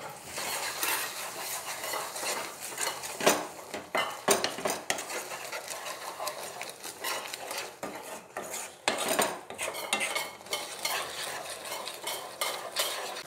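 A spatula stirring and scraping grated beetroot cooked down with sugar around a frying pan, in irregular strokes that clack against the pan, with sizzling underneath as the sugar mixes into the halwa.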